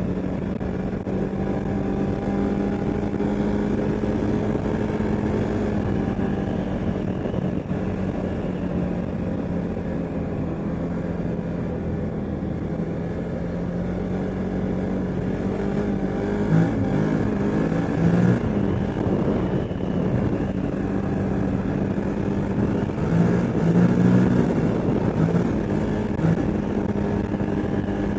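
CFmoto ATV engine running at a steady speed, on a machine with a known exhaust leak. It turns rougher and louder for a few seconds about two-thirds of the way through, and again near the end.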